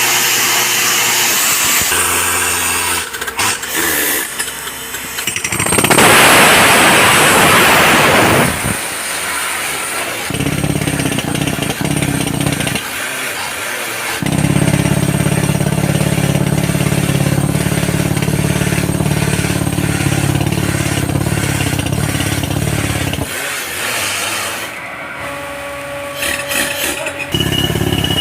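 Engine-driven earth-boring drill running while it bores a hole for an earth electrode, its engine note rising and dropping. A loud rushing noise comes about six seconds in and lasts a couple of seconds, and a steady low engine note holds through much of the second half.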